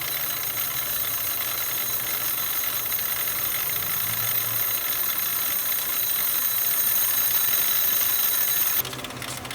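Brake disc being polished: a steady high-pitched whine and hiss of abrasive against the metal disc. It cuts off abruptly near the end.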